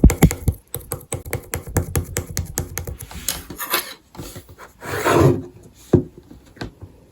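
Rapid, irregular clicks and knocks, with a brief rubbing or scraping noise about five seconds in and two last sharp clicks near the end.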